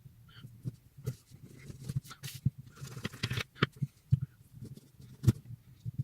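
A knife cutting a lemon into pieces: irregular scrapes and taps, with a sharper knock about five seconds in.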